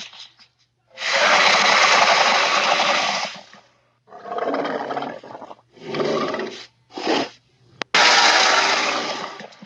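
Baryonyx dinosaur creature sound effects: a long call of about two and a half seconds, then three shorter calls, a sharp click, and another long call that fades out near the end.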